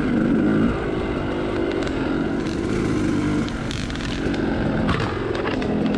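Two-stroke Yamaha YZ dirt bike engine running hard on a woods trail, its pitch rising and falling as the rider works the throttle over the terrain, with a few brief knocks from the bumps.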